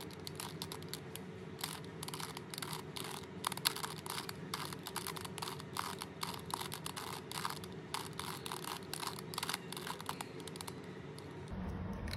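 A plastic 3x3 Rubik's cube being twisted by hand, its layers clicking and rattling in quick, irregular runs of turns.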